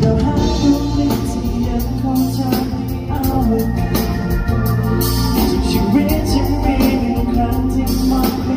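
Live pop music: a singing voice over sustained organ-like keyboard chords and a steady bass line.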